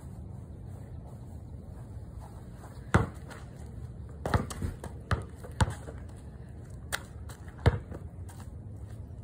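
A basketball bouncing on a concrete driveway: about seven sharp, irregularly spaced thuds, the loudest near the start and near the end, over a steady low background rumble.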